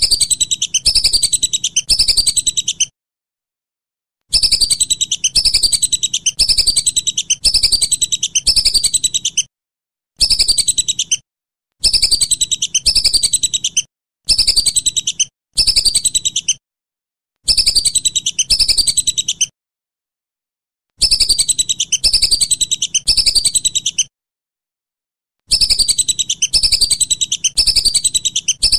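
Whistling duck (belibis) calling in bouts of quick, high, repeated falling whistles, a run of several notes at a time, each bout cut off sharply into silence before the next.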